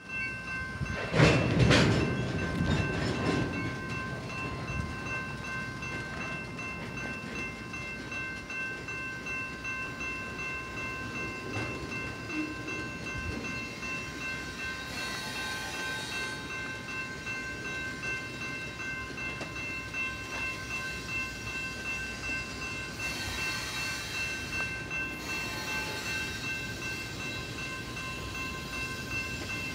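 Double-stack container train's well cars rolling past on the main line: a steady rumble with several thin, steady high tones over it. There is a louder burst of noise about a second in.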